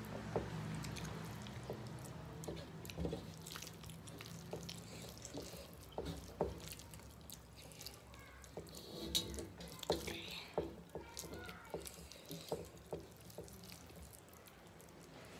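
Eating by hand: fingers squishing and mixing rice and curry against brass plates, with wet mouth and chewing smacks, heard as irregular short wet clicks.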